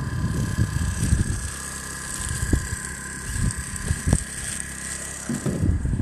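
Wind buffeting the microphone, easing about a second and a half in and picking up again near the end, over a steady high-pitched whine and a couple of brief knocks.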